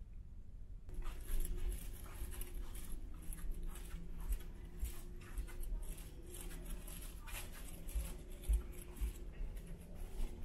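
Footsteps and scratchy handling rustle from someone walking with a handheld camera along a carpeted ship corridor, with irregular soft thuds. Under them runs a steady low hum from the ferry's machinery.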